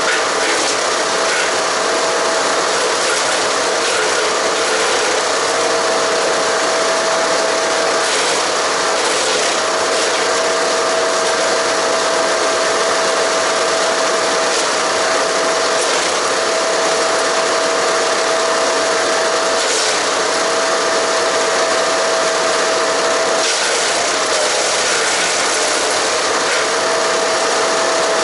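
Haige 15-horsepower wood chipper running steadily while shredding Japanese cedar and cypress branches. Its steady tone dips briefly every couple of seconds as branches load the blades, with scattered sharp cracks of wood being chipped.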